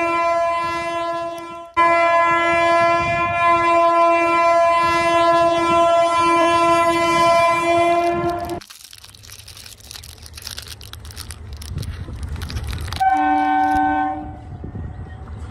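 Train horn sounding one long steady blast, cut off briefly about two seconds in and stopping about eight and a half seconds in. A low rumbling noise follows, then a second, shorter horn blast at a lower pitch about thirteen seconds in.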